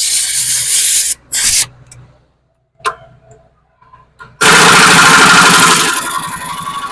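Air impact wrench working the lug bolts on a tractor's dual rear wheel hub: two short bursts in the first second and a half, a sharp click near three seconds, then a longer loud burst from about four and a half seconds that eases into a lower steady noise.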